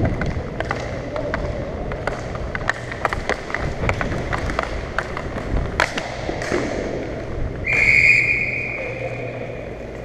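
Hockey sticks and puck making a run of sharp clicks and knocks during play. About eight seconds in, a referee's whistle gives one long blast that fades away, stopping play.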